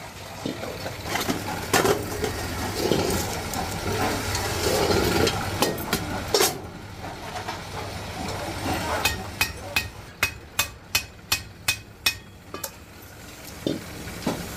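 Handle being hammered and riveted onto an aluminium kadai pan: a run of about ten quick, sharp metal taps, about three a second, in the second half, after some clattering as the metal is handled. A steady low hum runs underneath.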